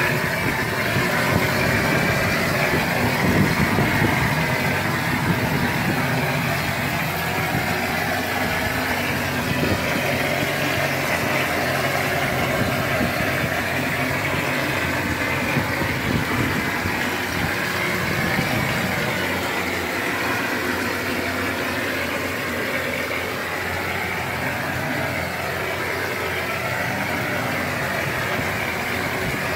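Traditional plaster machine running steadily while spraying plaster: a continuous machine drone with a broad hiss.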